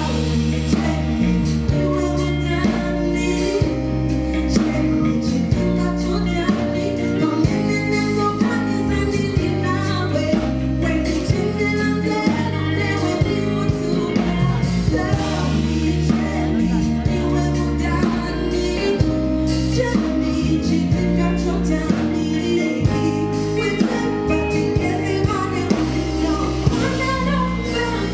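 Live afro-soul band music: a steady bass line and drums with a woman singing over it.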